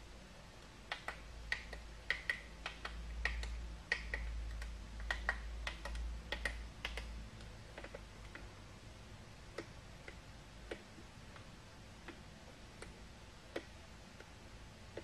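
A run of irregular light clicks and taps, thick for the first several seconds and then only now and then, with a low rumble under the busy part.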